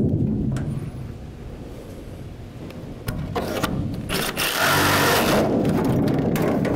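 Reciprocating saw cutting through the van's sheet-metal side panel. It runs quieter for the first few seconds and louder from about halfway in.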